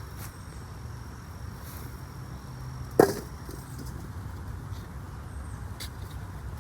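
A single sharp chop of a digging tool striking the soil about three seconds in, over a faint steady low hum.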